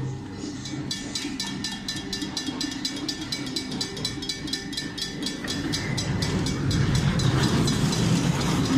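Railroad crossing bell ringing in rapid, evenly spaced dings, starting about a second in. A low rumble grows louder through the second half.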